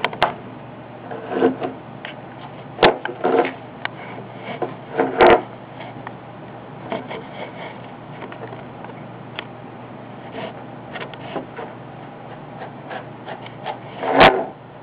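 Irregular scratching and rubbing on a hard surface, broken by several sharp knocks, the loudest near the end.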